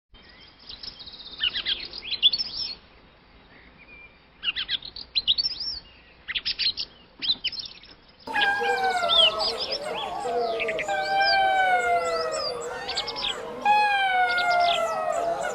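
Birds chirping in short rapid trills. About eight seconds in, several wolves start howling together: long, overlapping howls that glide slowly downward, with the birds still chirping above them.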